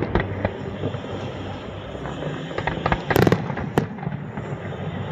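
Fireworks going off: scattered bangs over a continuous rumble, with a cluster of loud bursts about three seconds in and a sharp crack just after.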